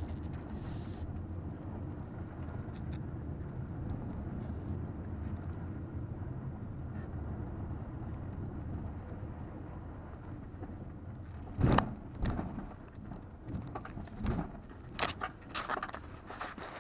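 2020 Toyota RAV4 XLE driving on a dirt desert trail, heard from inside the cabin: a steady low rumble of engine and tyres. After about eleven seconds comes a string of sharp knocks and rattles, the loudest first.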